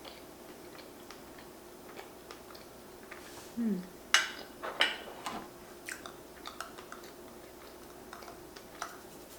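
Fork clinking and scraping against a plate while eating pancakes: two sharp clinks about four and five seconds in, then lighter taps. Just before them comes a brief low falling hum.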